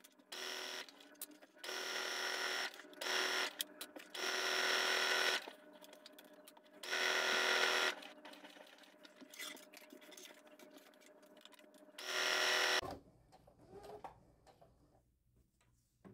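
Baby Lock sewing machine stitching through fabric in six short runs, starting and stopping, then falling quiet near the end.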